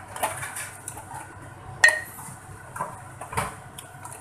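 Metal ladle stirring thick mutton curry in a metal pot, scraping and knocking against the pot with a few irregular clanks; the loudest, about two seconds in, rings briefly.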